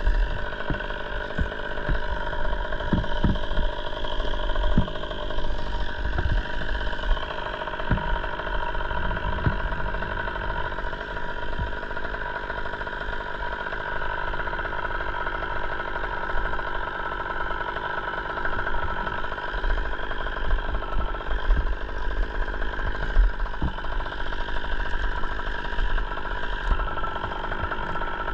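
A small engine running steadily at a constant speed, with irregular low knocks and thumps over it.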